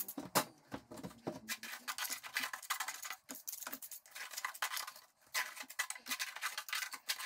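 Small steel pointing trowel scraping and clicking as lime mortar is taken off a board and pressed into the joints of a stone wall: a run of short, irregular scrapes and taps.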